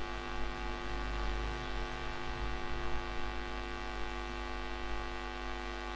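Steady electrical mains hum on the recording: a buzz with many even overtones. It is joined by faint low rumbling about one to three seconds in.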